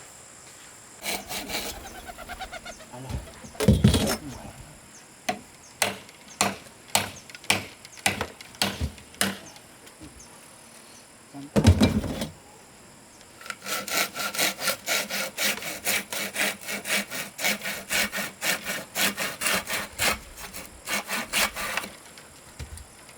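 Hand saw cutting wood in short strokes, scattered at first, then a steady run of about three strokes a second over the last third. Two heavier thumps come at about four and twelve seconds in.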